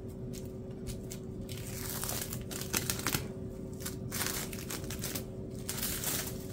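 Plastic cling wrap being peeled off a glass bowl, crinkling and crackling in irregular bursts.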